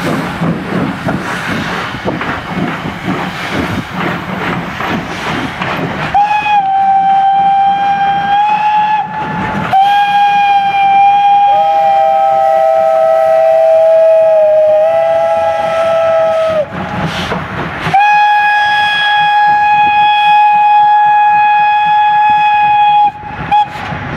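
Steam locomotive whistles blowing three long blasts as the locomotives pass. The first begins about six seconds in, the second sounds with a lower second whistle joining it, and the third comes near the end. Before the first blast there is the rolling rumble and clatter of the passing train.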